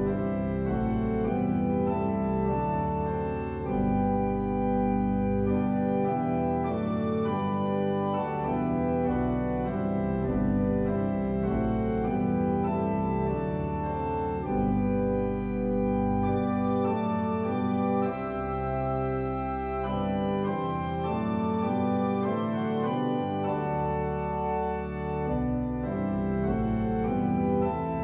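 Virtual pipe organ playing slow, sustained chords that change every second or two, without a break.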